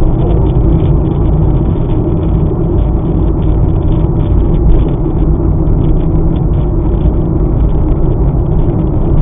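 Road noise of a car driving at speed, heard inside the cabin: a loud, steady low rumble of tyres on the road and engine.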